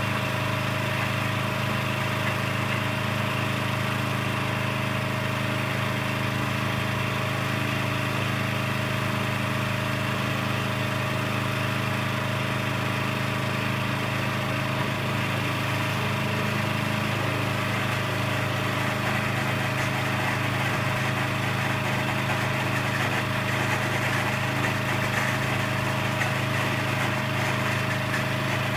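Small engine on a portable truck scale's gooseneck running steadily at a constant speed.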